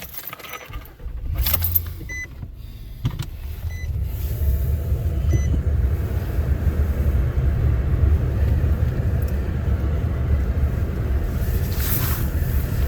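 A vehicle's engine runs with a steady low rumble while a dashboard warning chime beeps four times, about a second and a half apart. About three to four seconds in the rumble grows louder as the vehicle drives off and keeps running steadily.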